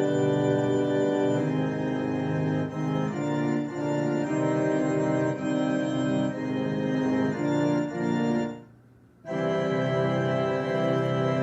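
Roland FP-30 digital piano played with an organ voice: held chords that change every second or so, with a brief break about eight and a half seconds in.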